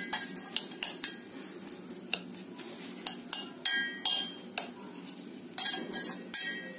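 Metal spoon stirring salt through sliced onions in a stainless steel bowl, scraping and clinking against the bowl at irregular intervals, some clinks with a brief metallic ring. A low steady hum runs underneath.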